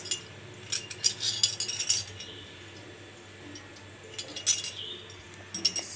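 Light clicks and clinks of small hard objects being handled on a table: a cluster of them about a second in, then a few more near the end.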